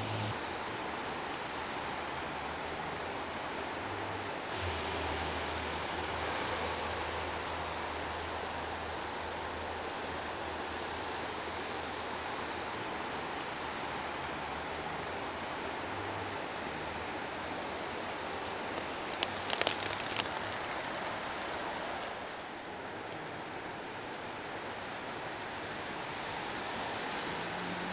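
Steady rushing water noise, with a brief cluster of sharp crackling clicks about nineteen seconds in.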